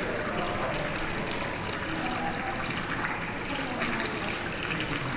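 Steady rush of running water, even and unbroken, with no distinct knocks or scrapes standing out.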